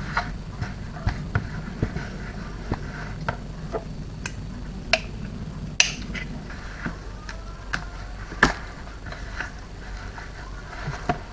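A mixing utensil clicking and knocking irregularly against a bowl while stirring a thick fudge mixture of melted white chocolate, condensed milk and Biscoff spread, which is starting to stiffen.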